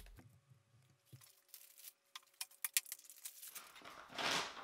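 Dremel 3D45 3D printer powering up after being switched on: a faint steady whine with a run of soft clicks, then a short rush of noise near the end.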